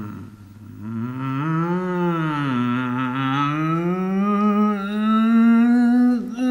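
A man's long, wordless vocal moan, an attempt at a primitive caveman-like sound that is almost a word. It starts low, swoops up and down in pitch, then is held for several seconds while slowly rising, and breaks off near the end.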